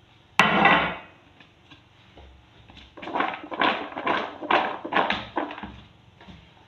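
Peanuts rattling in a bowl as they are tossed to coat them with sugar syrup. There is a brief loud clatter about half a second in, then a run of about six swishes, roughly two a second, starting about three seconds in.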